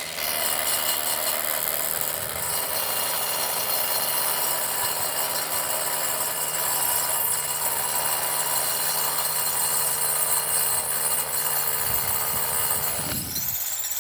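Hammer drill boring into concrete, running steadily with a rattling hammer action, then stopping about a second before the end.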